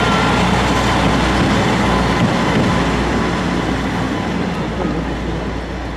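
Diesel locomotive engine running with a low, steady drone as the locomotive rolls past. The sound fades slowly in the second half as it moves away.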